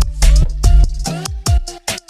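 Music: an electronic beat with sharp drum hits about four a second over a deep held bass, which drops out briefly near the end.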